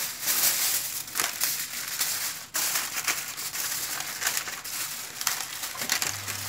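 Aluminium foil crinkling and crackling as it is scrunched by hand and pressed down over a roasting tray, with a brief pause about two and a half seconds in.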